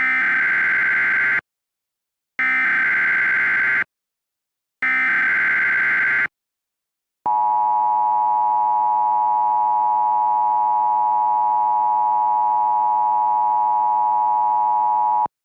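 Emergency Alert System tones: three short data bursts of the SAME header, each about a second and a half long with a second's gap between them, then the EAS two-tone attention signal, a steady dual tone held about eight seconds that cuts off abruptly. Together they mark the start of an emergency alert broadcast.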